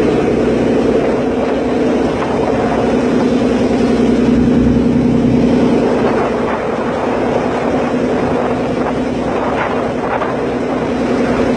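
Ferry engine running with a steady hum, under wind buffeting the phone's microphone on the open deck.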